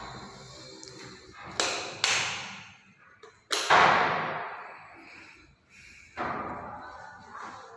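Four sudden hits, each fading away over about a second, the third, a little past the middle, the loudest.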